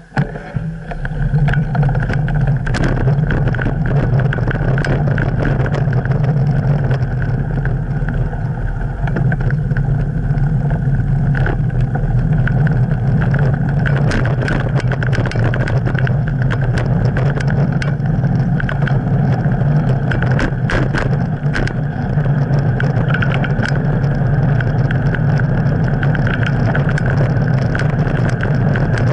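Steady low rumble of street traffic and riding noise picked up by a camera mounted on a bicycle's handlebars, with scattered small clicks and rattles.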